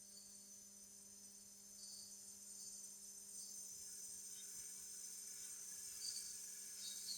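Faint rainforest ambience: a steady high-pitched insect drone with short chirps scattered through it, more of them near the end, over a low steady hum.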